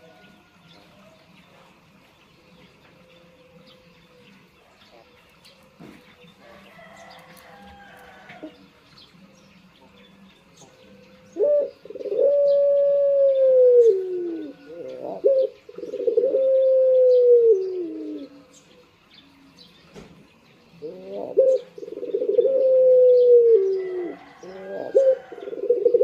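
Caged puter dove (ringneck dove) cooing. After about ten quiet seconds it gives a run of four low drawn-out coos, each starting with a short note and then a long coo that drops in pitch at its end.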